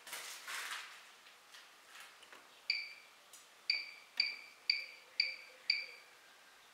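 Siemens WM12N2K7GR washing machine's control panel beeping as its button is pressed repeatedly: six short, high two-tone beeps, the first on its own and the other five about half a second apart. A brief rustling noise comes at the start.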